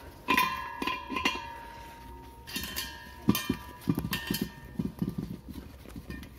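Knocks and clanks as a steel LPG gas cylinder and its regulator are handled. The first few ring on with a metallic tone, and duller, quicker thumps follow in the second half.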